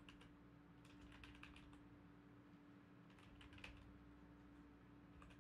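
Faint typing on a computer keyboard: several short runs of keystrokes with pauses between them, over a steady low hum.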